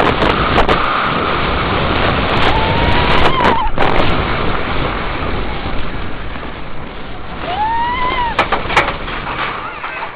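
Wind rushing over the microphone and the rumble of a steel roller coaster train running along its track at speed. A rider's voice yells two long rising-and-falling screams, one about two and a half seconds in and another near eight seconds.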